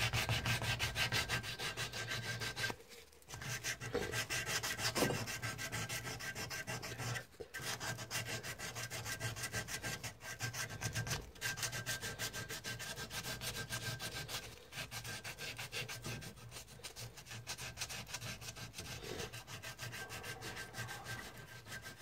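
Wet-and-dry abrasive paper rubbed back and forth in quick strokes on a heat-treated steel knife blade, scouring off the forge scale. The strokes break off briefly twice, about three and seven seconds in.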